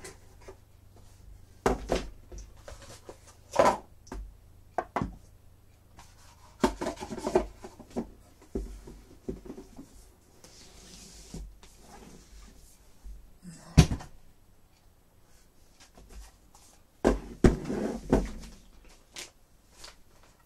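Cardboard boxes handled on a wooden table: a lid lifted off, boxes stacked and set down with scattered knocks and scrapes, and rustling of packaging. The sharpest knock comes about two-thirds of the way through, and a cluster of knocks and rustling comes near the end.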